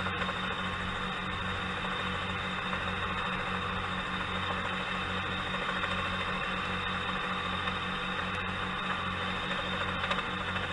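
Light helicopter's engine and rotor running steadily in flight, heard inside the cabin: a constant drone with a low, regular throb.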